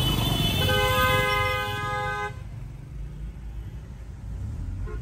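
A vehicle horn sounds one long honk of about two seconds in road traffic, then stops, leaving the low rumble of traffic and engines.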